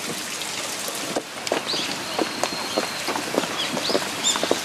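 Outdoor garden ambience: a steady hiss like running water, with small birds chirping repeatedly from about a second and a half in, and a few light taps.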